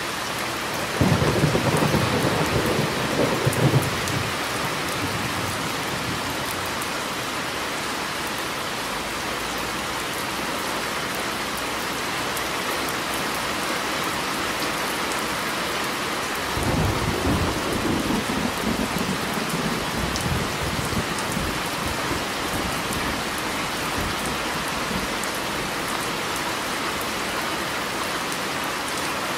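Steady rain with two thunder rumbles: one begins suddenly about a second in and lasts a few seconds, and a longer one starts a little past halfway and fades out over several seconds.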